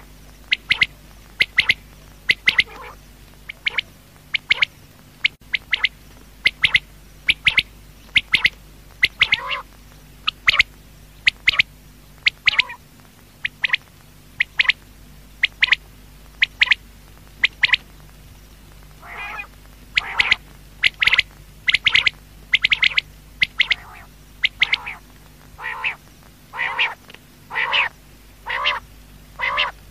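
Quail calling over and over, short sharp calls at first, about one a second, some in quick pairs; from about two-thirds in the calls become lower and fuller. A faint steady hum lies underneath.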